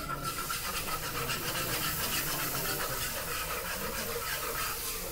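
Wire whisk scraping rapidly back and forth against the bottom of an electric wok, beating milk into a butter-and-flour roux for a white sauce.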